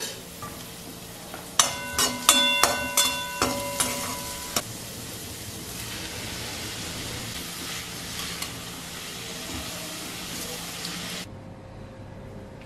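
Shredded cabbage sizzling in a metal kadai while a slotted metal spatula stirs it, clanking against the pan about eight times, with ringing strikes between about one and a half and four and a half seconds in. The sizzling cuts off suddenly near the end.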